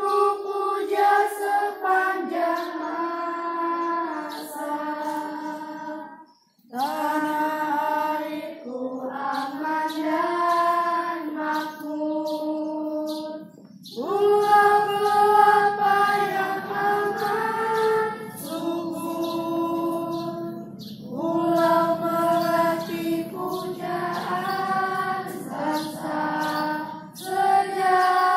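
A choir of children singing a song together in long held phrases, pausing briefly about six and a half seconds and fourteen seconds in.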